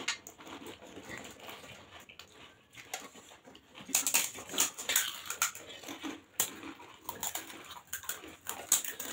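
Crisp pani puri shells being cracked open with the fingers and crunched while eating: a run of irregular sharp crackles that grows denser and louder about four seconds in, with light clinks of steel spoons against steel bowls.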